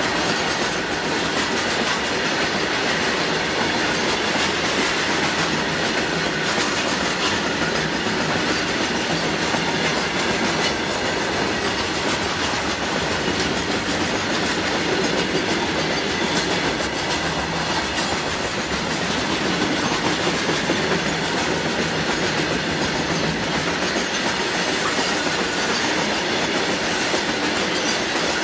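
Long rake of open-top freight wagons rolling past: a steady rumble of wagon wheels on the rails, with clickety-clack over the rail joints.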